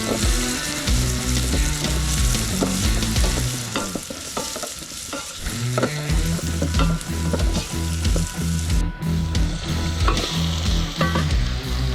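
Chicken innards frying in a pan with a steady sizzle, stirred so that a utensil clicks and scrapes against the pan now and then.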